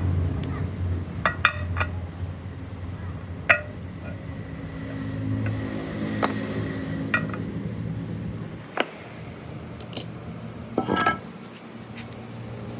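Irregular sharp metallic clinks and knocks, some ringing briefly, with a cluster of strikes near the end, over a steady low hum.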